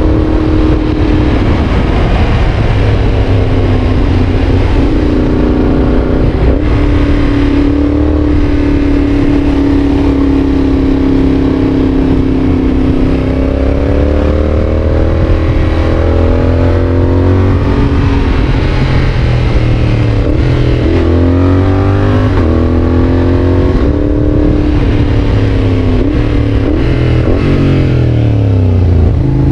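Yamaha Tracer 7's 689 cc parallel-twin engine running through an aftermarket GPR exhaust under riding load. The note climbs and falls with the throttle and drops sharply at several gear changes, most often in the second half.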